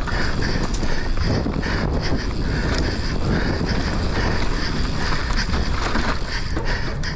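Mountain bike descending a rough dirt trail at speed: steady wind rush on the microphone, tyre noise and frequent knocks and rattles from the bike over bumps.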